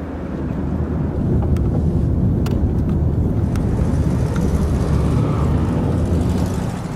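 A car being driven: a steady low engine and road rumble that grows a little louder about a second in and then holds, with a few faint ticks.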